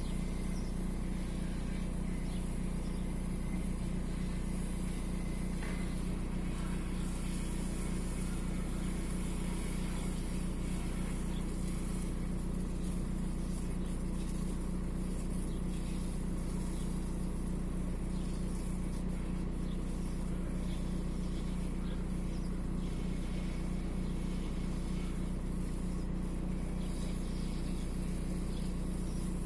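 Volkswagen Golf IV's 1.9 TDI AXR four-cylinder diesel idling steadily with an even, unchanging note. This engine logs an intermittent cylinder 4 misfire (fault 16688 / P0304).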